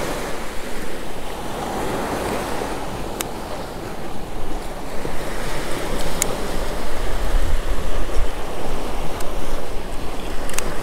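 Small surf breaking and washing up a sandy beach in a steady rush, with wind buffeting the microphone. A few small, sharp clicks sound over it.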